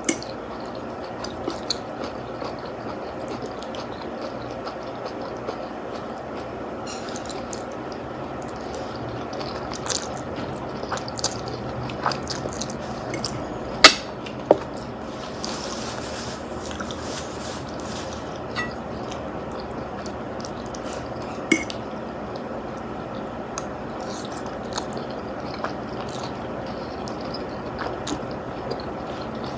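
Close-up eating sounds of spaghetti and meatballs: wet chewing and slurping with scattered small clicks, the sharpest a pair of clicks about halfway through, over a steady background hiss.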